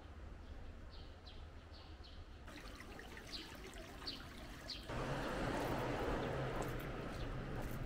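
Outdoor street ambience: a few short, high chirps over a low hum, then from about five seconds in a louder, steady rushing noise with a low hum underneath.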